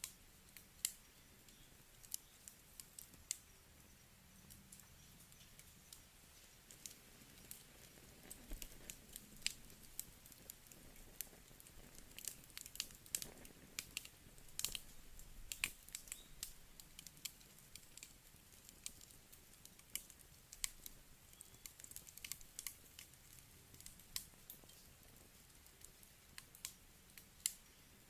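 Wood campfire crackling: irregular sharp pops and snaps of burning logs over a faint hiss, coming thickest for a few seconds around the middle.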